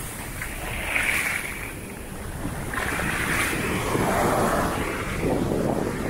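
Wind gusting across the microphone, a rushing noise that swells about a second in and again from about three to five seconds in.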